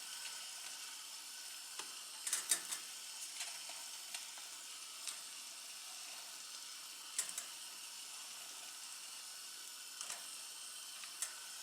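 Pot of water at a hard boil with a batch of boilies cooking in it, giving a steady bubbling hiss. A few light clicks and taps sound through it, a cluster of them a little over two seconds in.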